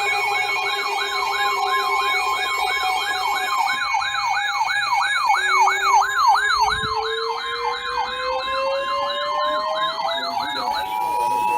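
Several sirens sound together: an electronic siren in fast yelp, about three sweeps a second, over a steady two-tone alarm. About five seconds in, a second siren begins a slow rising wail. Near the end the yelp stops and the steady two-tone alarm carries on alone.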